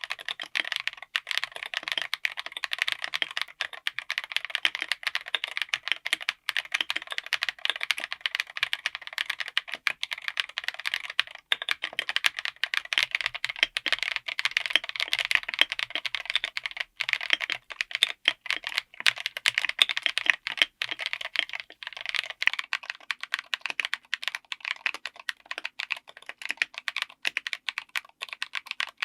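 Continuous fast typing on a mechanical keyboard with tactile switches: a dense, unbroken stream of key clicks.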